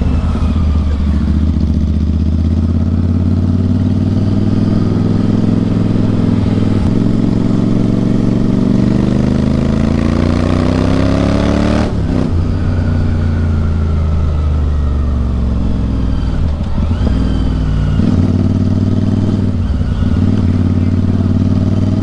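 Royal Enfield Interceptor 650's parallel-twin engine through an Atom full-system exhaust, heard from the rider's seat while riding in traffic. The loud exhaust note climbs under throttle for several seconds, cuts off sharply about halfway through, drops away as the bike slows, then picks up again near the end.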